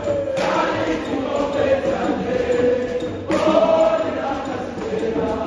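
Group of performers singing a traditional Kenyan dance song in chorus, with a fresh loud phrase breaking in about half a second in and again after about three seconds.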